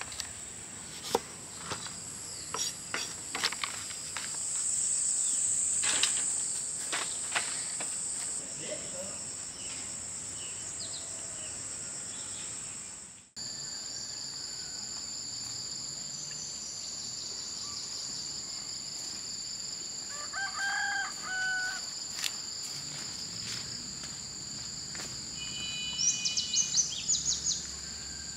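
Steady high-pitched buzzing of insects, with scattered clicks and knocks in the first half. A chicken calls about two-thirds of the way through and a bird chirps near the end.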